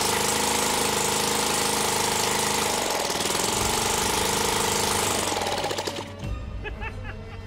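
Homemade single-cylinder rotary-valve engine running fast and loud with rapid, even firing, dipping briefly in revs about three seconds in. Its sound falls away about five and a half seconds in, and music takes over.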